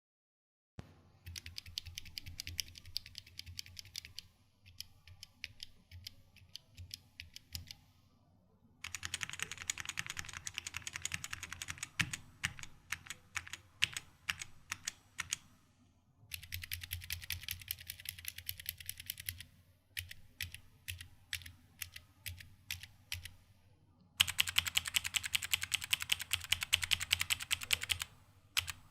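Gateron mechanical keyboard switches being typed on for a sound test: four stretches of fast, dense key clicking, the last the loudest, alternating with slower single key presses.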